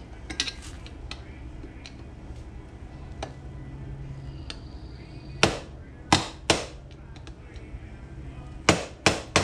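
Hammer striking an old screwdriver being used to work the front sprocket off an ATV, metal on metal. A few light taps come first, then five hard, ringing blows in two groups from about halfway through. A steady low hum runs underneath.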